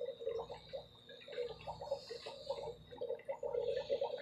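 Water bubbling and gurgling in the caiman's tank, a rapid irregular patter of small bubbles that keeps on steadily.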